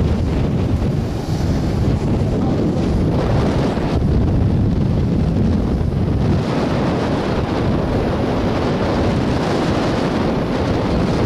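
Strong wind buffeting the microphone, with breaking surf underneath.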